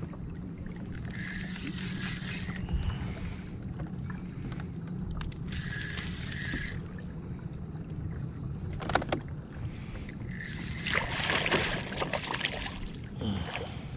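Spinning reel cranked in spells of about a second while a hooked bass is fought in beside a kayak, over a steady low hum, with a few sharp clicks about nine seconds in.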